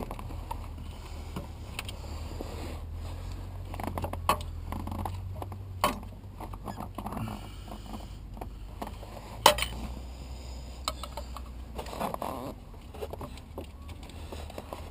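Tools and parts being handled during car repair work: scattered metallic clicks and knocks, the sharpest about halfway through, over a low steady hum.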